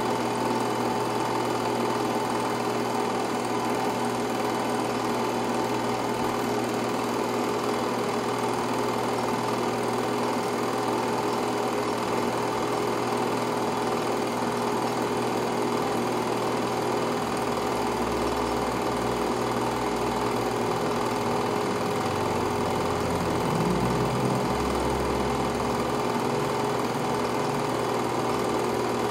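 Film projector running steadily with a constant mechanical whirr and clatter. A low rumble joins it for several seconds in the second half.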